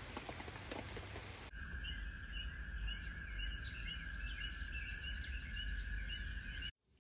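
Rain pattering on a canopy for the first second and a half, then outdoor ambience: birds chirping repeatedly over a steady high-pitched hum and a low rumble. It cuts off just before the end.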